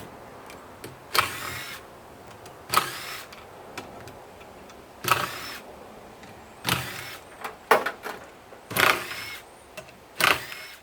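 Cordless power driver with a socket run in about seven short bursts, each spinning up with a rising whine, backing out the heavy-threaded bolts of a washing machine during teardown.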